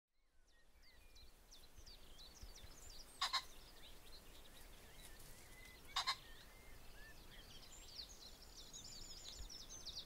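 Faint dawn field ambience fading in: many small birds chirping and whistling. A rooster pheasant's loud, harsh two-note crow comes twice, about three seconds apart.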